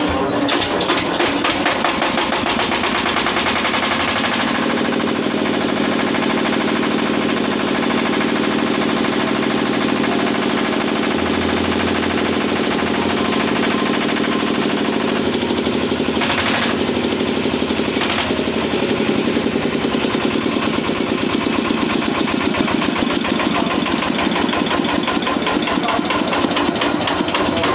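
Air-cooled PDPL Swaraj 14 HP single-cylinder diesel engine driving a generator, running steadily with a rapid, even knocking beat, freshly started.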